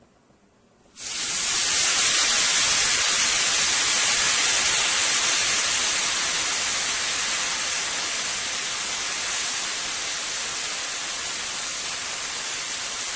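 Porterhouse steak sizzling on a hot, oiled grill pan: the sizzle starts suddenly about a second in as the meat goes down, then holds as a steady, loud hiss that eases off slightly.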